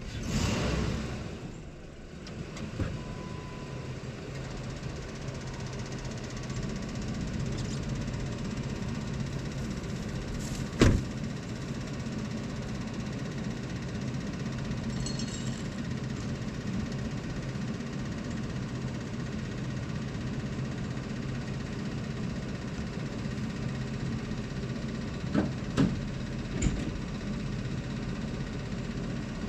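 Pickup truck engine idling steadily, with one sharp knock about eleven seconds in and a few lighter knocks near the end.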